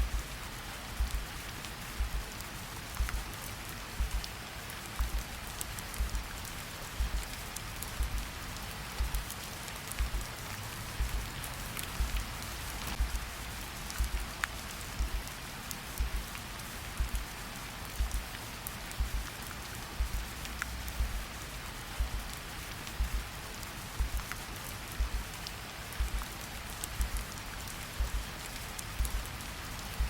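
Steady rain hissing, with scattered drop ticks, over a slow heartbeat: a deep double lub-dub thump about once a second.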